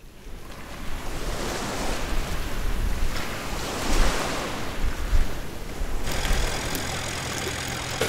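Sea waves washing onto a beach, the surf swelling and falling back every second or two. About three-quarters of the way through, a steady low mechanical hum with a thin high whine joins in.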